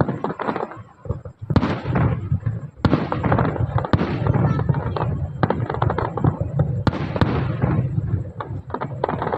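Fireworks display: a rapid, continuous series of loud bangs, several a second at times, each trailing off in a reverberating rumble.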